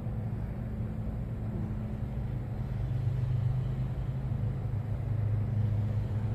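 Steady low hum of a running motor, its pitch unchanging.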